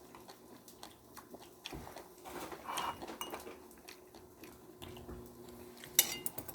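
Faint tableware sounds during a meal: scattered soft clicks of cutlery on dishes, with one sharp clink of a utensil against a dish about six seconds in that rings briefly.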